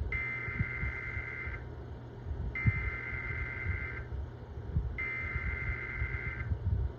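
Emergency Alert System SAME header from a Sage ENDEC: three identical bursts of buzzy digital data tones, each about a second and a half long with a second's pause between, encoding a severe thunderstorm warning. A low hum runs underneath.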